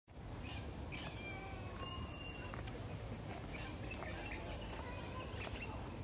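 Wild birds chirping and whistling, with short calls and a few held whistles, over a steady high-pitched hiss and a low rumble.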